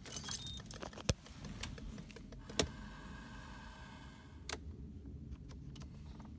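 Sharp clicks of the light-switch stalk in a Peugeot 406's cabin as the lights and rear fog lights are switched on, several clicks a second or two apart over a low steady rumble.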